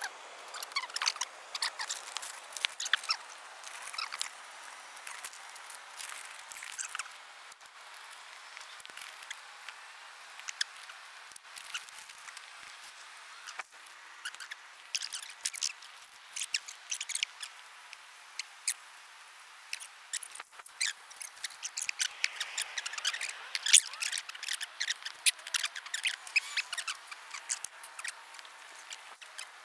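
Rustling and small crackling clicks from hands handling masking tape and a paper stencil on a car tyre. The clicks are busiest at the start and again near the end.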